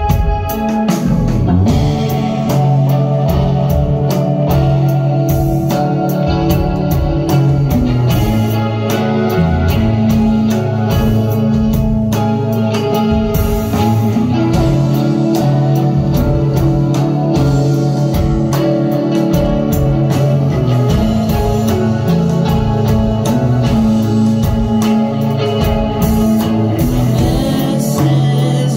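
Live rock band playing at a steady, full level, with electric guitar to the fore.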